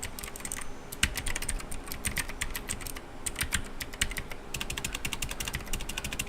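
Typing on an E-3LUE K753 mechanical keyboard with clicky blue switches, Cherry MX Blue-style: a rapid run of sharp key clicks, pausing briefly about a second in and again about three seconds in.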